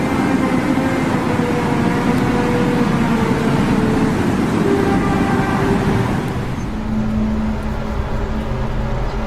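Loud drone of several held tones over a rumbling noise bed. The tones step slowly downward in pitch, and about two-thirds of the way through they give way to a lower, steadier hum. This is the kind of unexplained 'strange sound in the sky' that the recording was made for.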